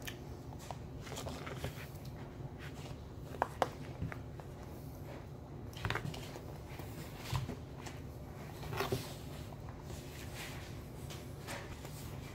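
Eating sounds: a metal spoon clicking and scraping in a plastic bowl of ice cream, with chewing, and a few short sharp clicks scattered through, over a steady low hum.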